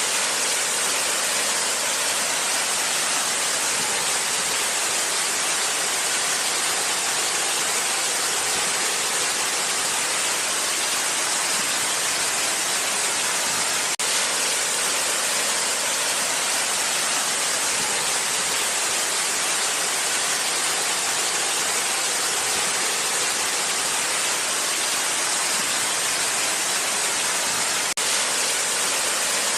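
Waterfall: a steady, even rush of falling water with a strong hiss, unchanging throughout.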